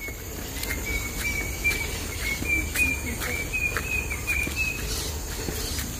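A bird calling a steady run of short, clear notes, about four a second, creeping slightly higher in pitch, over a low rumble and the faint scuff of footsteps on a dirt trail.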